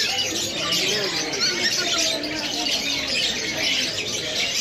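A dense chorus of many birds chirping and calling over one another, with high chirps mixed with lower squawking calls.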